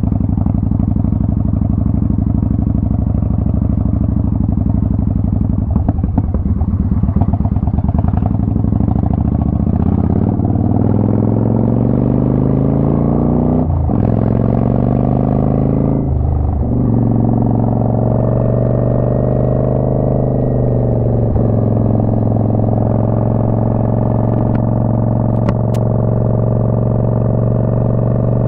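Twin-cylinder motorcycle engine under way. Its revs climb and drop sharply twice, at two upshifts about halfway through, then it settles into a steady cruise.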